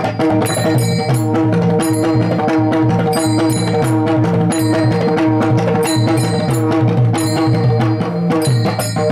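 Warkari devotional music: mridang (pakhawaj) barrel-drum strokes in a steady rhythm with recurring groups of ringing metal hand-cymbal (taal) clashes, over steady held tones.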